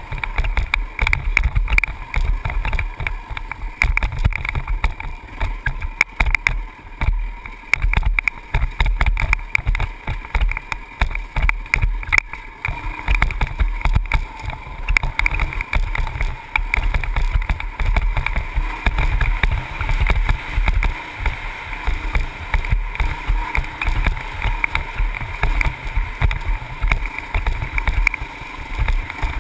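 Honda CRF450X single-cylinder four-stroke dirt bike engine running under way on a dirt trail. It is heard through heavy, uneven wind buffeting on a helmet-mounted camera's microphone.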